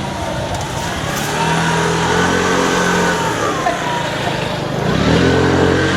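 Road vehicle engines running and pulling away, with one vehicle louder from about one and a half seconds in and another near the end.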